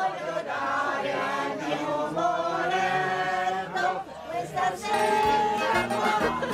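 Several people singing together in an informal group sing-along, voices held on sung notes.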